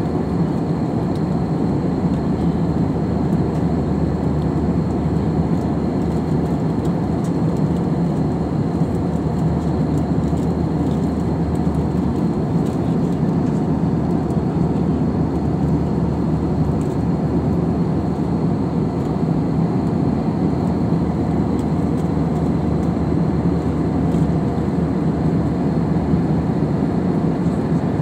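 Cabin noise of an Airbus A320-family jet airliner in flight, heard at a window seat: a steady, deep drone of engines and rushing air. A faint steady high whine sits above it.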